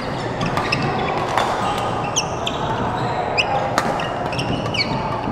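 Badminton rally in a large hall: sharp racket-on-shuttlecock hits and short shoe squeaks on the court mat, several of each, over the steady background noise of play on other courts.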